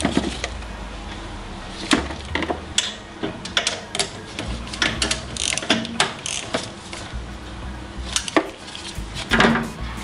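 Ratchet wrench clicking in short runs, with clinks of metal tools, as the exhaust manifold nuts are tightened on a Honda Zoomer's engine block.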